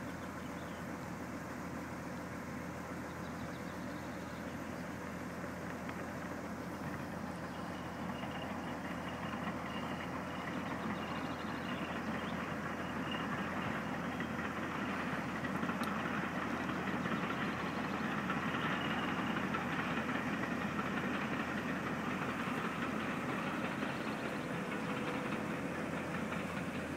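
Distant steam train running, a steady rumble that grows louder about halfway through.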